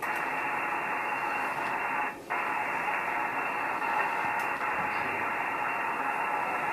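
Steady hiss and static from a shortwave receiver tuned to single sideband on the 20-metre band, with a brief dropout about two seconds in.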